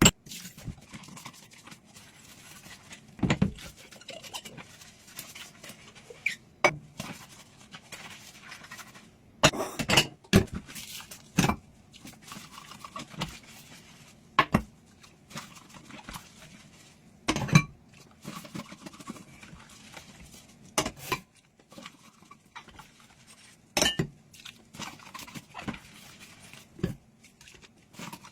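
Dishes being washed by hand: irregular clinks and knocks of dishware and utensils being handled and set down, with quieter rubbing between them.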